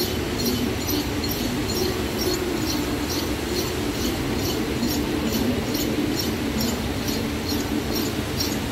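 Hundreds of đàn tính lutes strummed together in a steady beat, about two to three strokes a second, blending into a dense, even wash of sound.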